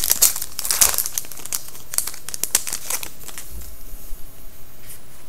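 Foil wrapper of a 2011/12 Upper Deck SPX hockey card pack being torn open and crinkled by hand. The crackling is busiest in the first three seconds and thins to a few scattered crinkles after that.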